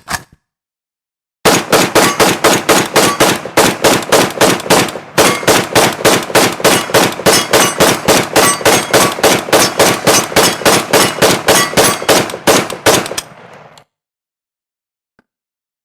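AK-47 assault rifle firing on full automatic: a long run of rapid, evenly spaced shots lasting about twelve seconds, with a brief break about five seconds in, ending in a short fading echo. One sharp short crack comes just before, at the very start.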